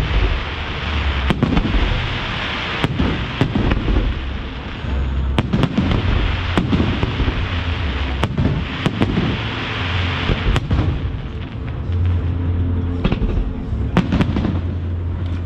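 Aerial firework shells bursting over water: a dozen or so sharp bangs at irregular intervals, over a dense, continuous crackle from the glittering bursts.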